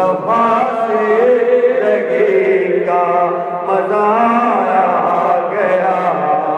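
A man singing a devotional Sufi kalam (naat-style) into a microphone, in long held phrases that slide up and down in pitch.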